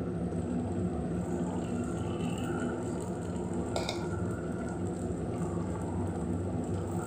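Paniyaram batter frying in hot oil in a cast-iron paniyaram pan as ladlefuls go into the wells, over a steady low hum. One sharp tap comes a little under four seconds in.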